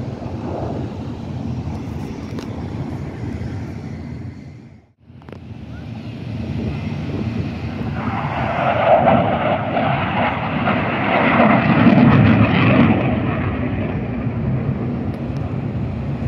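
An airplane passing, its engine noise swelling from about eight seconds in to a peak around twelve seconds and then easing off, over a steady rushing background; the sound drops out briefly about five seconds in.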